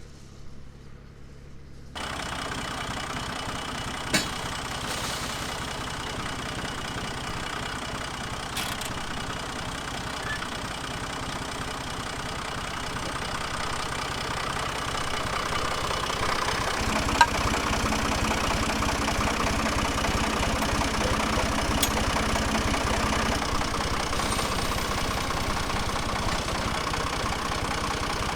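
Ford tractor engine running steadily, getting louder about halfway through as it comes closer, with a couple of short sharp clicks.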